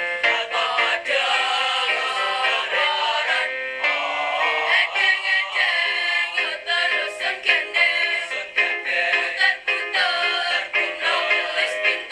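Mixed youth choir of girls' and boys' voices singing in harmony, an Indonesian ethnic choral arrangement, with short sharp rhythmic accents.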